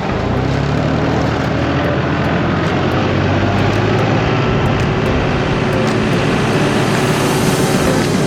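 Scraping tractor's engine running steadily under load while it pushes wet manure slush along a barn alley, with a broad scraping hiss.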